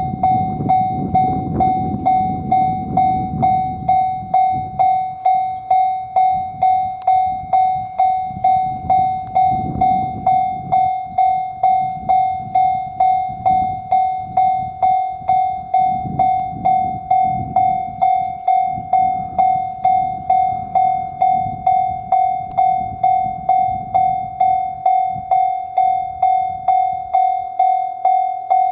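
Japanese railway level-crossing warning bell ringing on and on, its one tone struck in an even rhythm of a little under two strikes a second, with a low rumble underneath that is strongest in the first few seconds.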